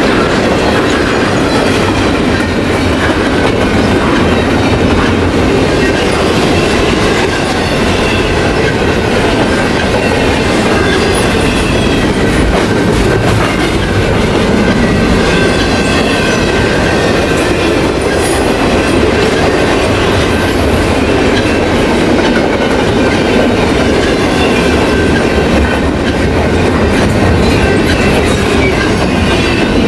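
Freight train cars rolling steadily past, wheels clicking over the rails, with faint high wheel squeal at times.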